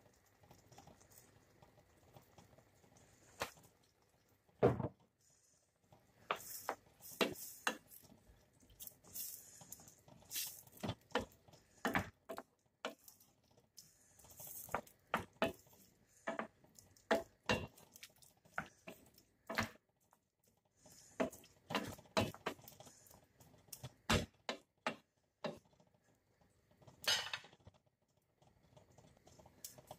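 A utensil stirring sliced vegetables in sauce in a pan, with irregular knocks and scrapes against the pan and wet squishing of the vegetables.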